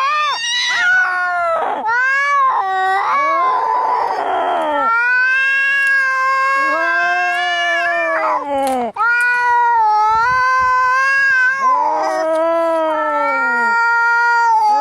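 Domestic cats fighting, yowling in long, wavering howls that rise and fall in pitch, almost without a break. A harsh hiss cuts in about three seconds in and lasts under two seconds.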